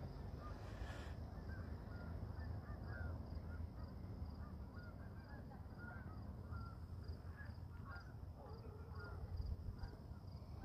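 Faint, distant Canada geese honking: many short calls scattered throughout, with a few lower ones near the end. A faint high ticking repeats about twice a second behind them.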